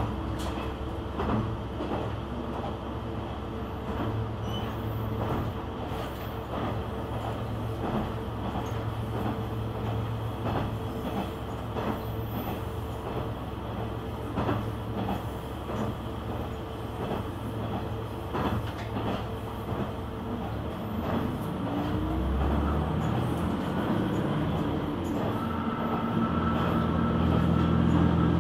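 KiHa 120 diesel railcar running, heard from inside the car: steady rolling noise with repeated knocks of the wheels over rail joints. In the last few seconds the diesel engine's hum comes up and grows louder.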